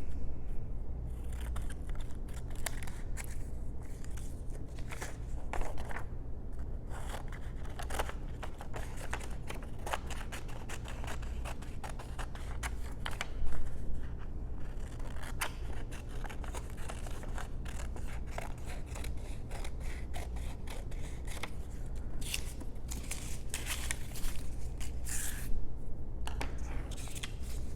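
Scissors cutting paper: a long run of short snips and rustles as wing and tail shapes are cut out of a printed template.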